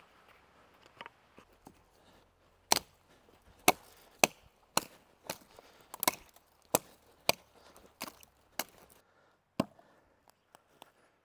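Gränsfors Bruks Small Forest Axe chopping into a dead fallen tree trunk: about a dozen sharp strikes, roughly two a second, starting a few seconds in and stopping shortly before the end.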